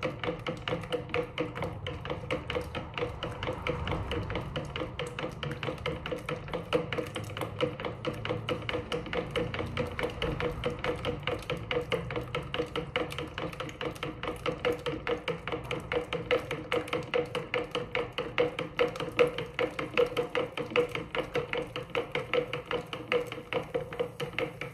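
A plastic spoon stirring briskly in a plastic measuring jug, tapping the jug's walls about three to four times a second with a steady ringing tone under it. It is mixing lye solution, oil and alcohol so they saponify into soap.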